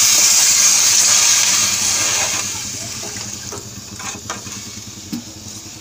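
Water poured from a steel tumbler into a hot kadai of frying onion-tomato masala, hissing loudly and dying away after about two and a half seconds. A ladle then stirs the thinned curry, with a few light taps against the pan.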